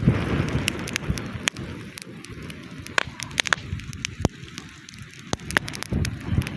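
Small campfire crackling with irregular sharp snaps, with wind rumbling on the microphone for the first second or so.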